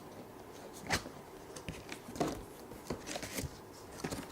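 A cardboard box being handled and opened: a few scattered light knocks and clicks with soft rustling between them.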